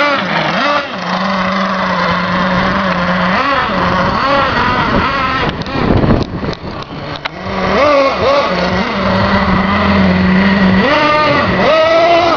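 Small engine revving up and down repeatedly under a steady hum, with a short dip and some clicking about halfway through.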